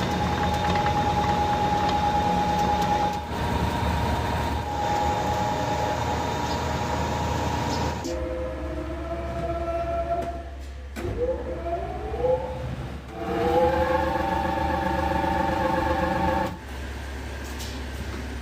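Factory machinery running with a steady motor whine over a low hum. About 11 seconds in, the whine rises in pitch like a motor speeding up, holds at the higher pitch, then drops away near the end, leaving a quieter hum.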